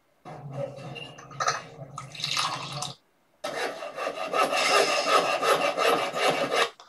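Sound effects from an animated coffee-shop ad template's preview: an uneven, rough noise for about two and a half seconds, a brief break, then a steadier, fuller noise for about three and a half seconds that cuts off suddenly.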